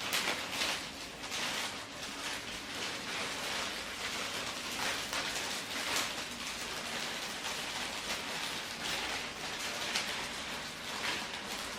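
Packaging wrap crinkling and rustling in a steady stream of small crackles as it is handled and pulled off a potted plant.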